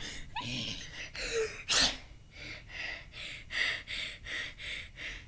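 A boy panting hard, with quick short breaths at about three a second, after one sharp, loud gasp a little under two seconds in.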